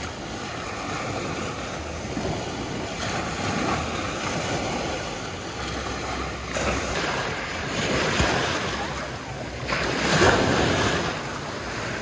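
Small Black Sea waves breaking and washing up over the sand at the water's edge. The wash swells several times, loudest about ten seconds in.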